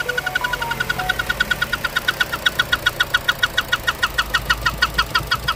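Opel Astra J 1.4 turbo petrol engine idling just after starting, with a sharp, even ticking of about seven ticks a second. The ticking comes from compression leaking past a loose spark plug in cylinder one.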